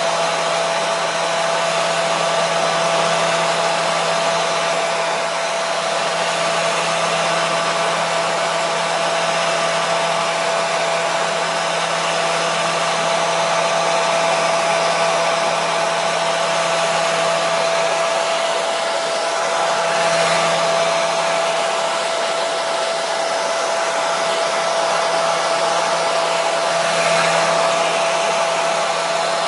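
Hair dryer running steadily: an even rush of air with a constant motor whine and a low hum underneath.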